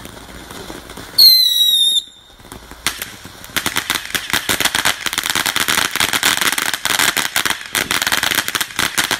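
Ground fountain firework spraying sparks, crackling rapidly and densely from about three seconds in. A short, loud high whistle sounds about a second in.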